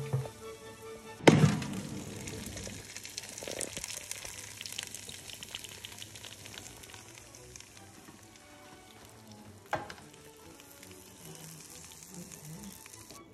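Freshly cooked skewered chicken and vegetables sizzling and crackling in an air fryer basket. The crackle follows a loud thunk a little over a second in and dies down over the next few seconds. There is another sharp knock later on.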